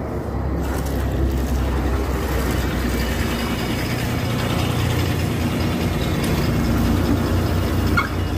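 Diesel city bus engine idling close by at a stop, a steady low hum. A short click comes near the end.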